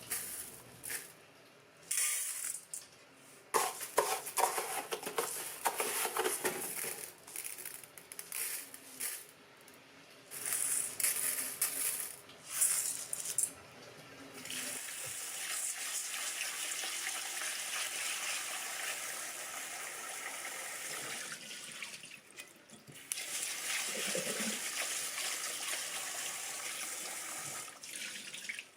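Water from a kitchen tap splashing in short, uneven bursts as something is rinsed under it, then running steadily into the sink, with a brief break a little before the end.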